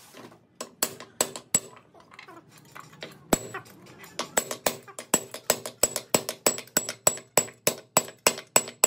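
A hammer striking a steel drift held on a part inside a Doosan DX140W excavator's hydraulic pump casing: sharp, ringing metal clinks. Four quick blows about a second in, a pause, one blow, then a steady run of about three blows a second.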